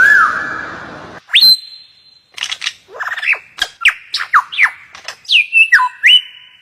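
A bird whistling a varied series of clear notes: a sharp upward whistle held on a high tone, then a run of quick downward-sliding notes, and more held whistles near the end.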